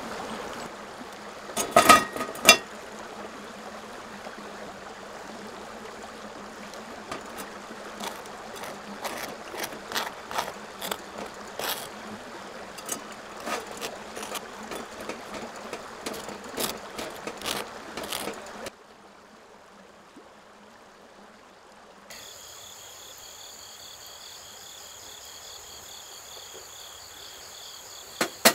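A thin stream of hot water pouring from a gooseneck kettle onto coffee grounds in a pour-over dripper, with two sharp knocks about two seconds in. A butter knife then scrapes and clicks over crisp grilled toast for most of the stretch. After a sudden drop to quiet about two-thirds of the way through, a steady high insect trill sets in.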